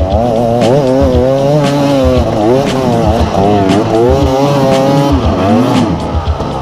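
KTM EXC 250 two-stroke dirt bike engine revving hard and dropping back again and again under riding, its pitch rising and falling about once a second.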